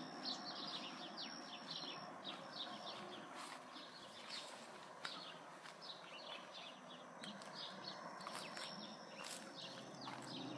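Faint bird chirping: many short, falling chirps in quick succession.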